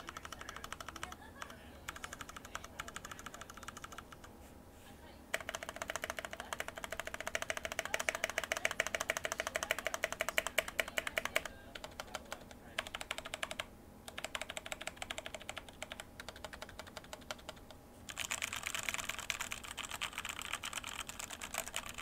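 Typing on a Royal Kludge RK104 Plus mechanical keyboard with its stock keycaps: a fast clatter of keystrokes in runs. The densest, loudest run is from about five to eleven seconds in, then come short pauses and sparser typing, then another fast run near the end.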